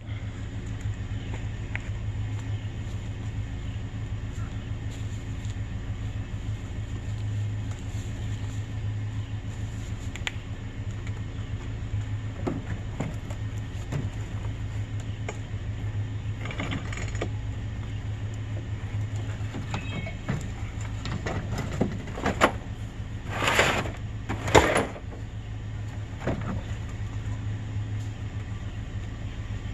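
Vehicle engine running with a steady low drone. A few short knocks or rattles come over it, the loudest two a little over three-quarters of the way through.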